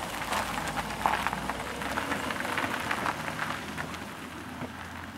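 Acura sedan driving past on wet, slushy pavement: its tyres hiss and crackle through the slush over a low engine hum, which fades near the end as the car pulls away.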